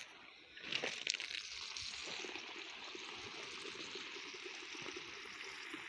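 A stream of water from a garden hose splashing onto cabbage seedlings in plastic trays and the soil around them: a steady splashing hiss that picks up about a second in.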